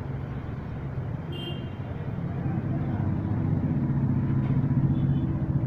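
A motor running with a steady low hum, growing gradually louder from about two seconds in.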